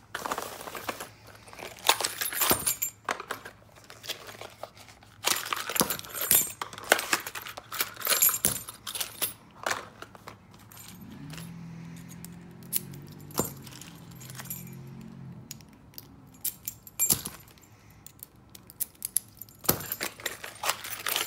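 Keys and brass lock cylinders jangling and clinking as they are handled on a glass counter, with rustling of the small plastic bags and cardboard boxes they come out of. A faint low hum runs for a few seconds in the middle.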